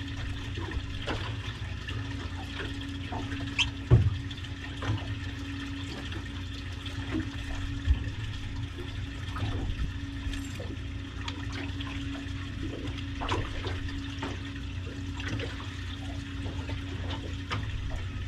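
Seawater sloshing and gurgling against a boat's hull over a steady low mechanical hum, with scattered light knocks and a louder thump about four seconds in.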